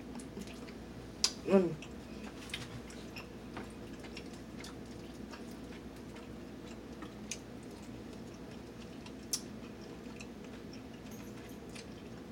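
Close-up eating sounds: a person chewing lemongrass chicken wings and rice, with scattered small wet clicks and mouth noises and a brief "mm" about a second and a half in.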